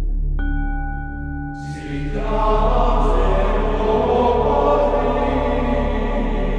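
Slow, solemn background music: a low sustained drone, a single bell-like struck tone about half a second in, then a choir-like wash of voices swelling in from about two seconds.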